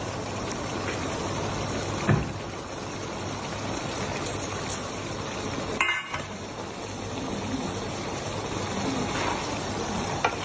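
Tomato sauce simmering in a large pan as the macaroni cooks in it, a steady bubbling hiss. Three short knocks of a utensil against the pan come about two, six and ten seconds in; the one near six seconds is the loudest and rings briefly.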